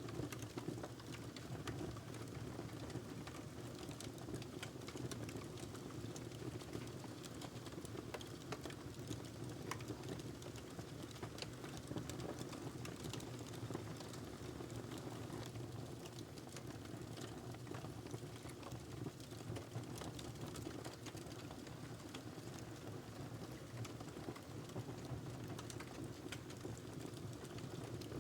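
Wood logs burning in a fireplace: a steady low rush of the fire with frequent small, irregular crackles and pops.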